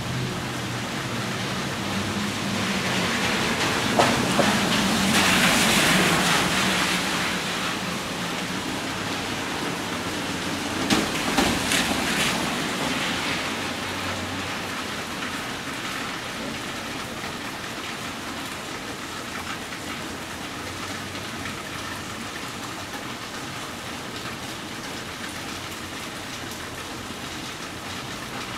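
Steady rain falling on a wet street and porch, an even hiss with drips. The hiss swells louder about four to eight seconds in, with a few sharp knocks near the start of the swell and again near the middle.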